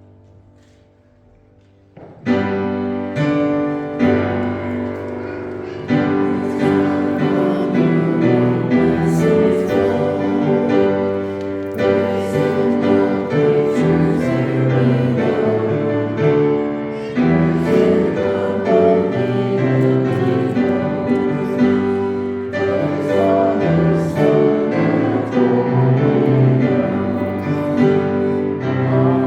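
Music that starts suddenly about two seconds in, after a faint stretch, and then plays on at a steady level.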